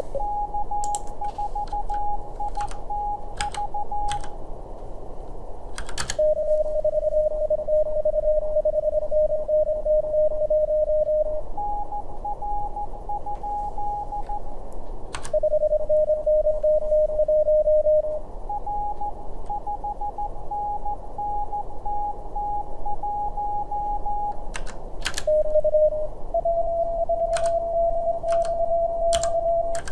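Morse code at 25 words per minute from Morse Runner's simulated CW contest. Two tones at different pitches take turns: the operator's own sending and the simulated station's replies. A third, slightly different pitch comes in near the end, over steady receiver hiss. Short computer-keyboard clicks sound between the turns as call signs and numbers are typed.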